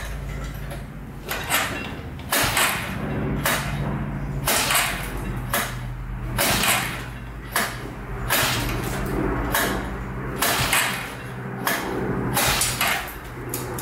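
Recoil pull starter on a 1998 Arctic Cat 300 ATV, yanked over and over, about once a second, a dozen or so pulls. Each pull is a short whirring crank of the engine that does not catch. A low steady hum runs underneath.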